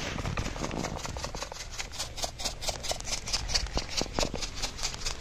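Chilli powder shaken out of a cardboard spice box onto a steel tray: a fast, even run of light taps, about six a second.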